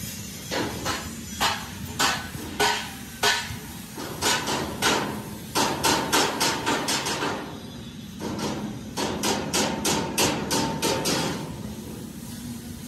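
Hand hammer striking steel. Spaced single blows come first, then two quick runs of rapid blows with a ringing metallic note, over a steady low hum.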